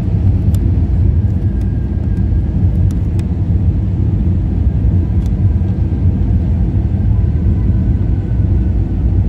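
Steady low rumble of an airliner cabin on final approach: engine and airflow noise heard from a passenger seat, with a few faint clicks in the first few seconds.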